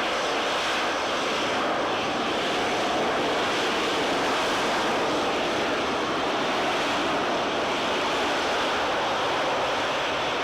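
Aircraft engine noise from a flying display: a steady, even sound that holds its level without rising or falling.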